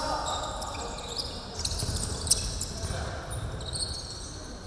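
Basketball play on a wooden gym floor: sneakers squeaking in many short high chirps and the ball bouncing, with a sharp knock about two seconds in.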